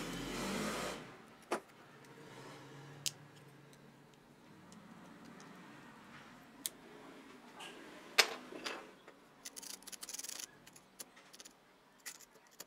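Small metal clicks and scrapes of a pick working at the seam of a DeWalt XRP 18V drill's front gearbox housing. There is a short rustle at the start, then a few sharp clicks, the loudest about eight seconds in, and a quick run of rattling scrapes around ten seconds in.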